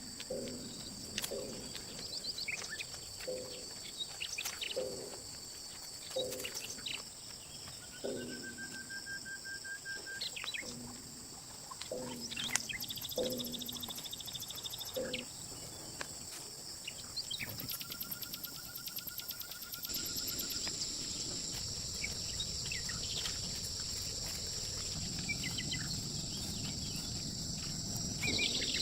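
Steady high-pitched chorus of crickets and other insects, with bird calls over it. A low call repeats about once a second through the first half, and the background changes abruptly about twenty seconds in.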